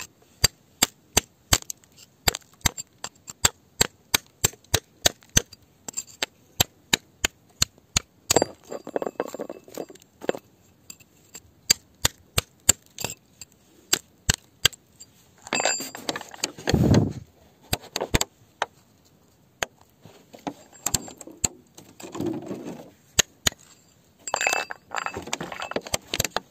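A pointed metal hand tool chipping at rocky, gravelly ground: sharp taps of metal on stone about three a second, then, from about a third of the way in, slower taps mixed with scraping and crunching of gravel as the tool digs around and loosens a rounded stone.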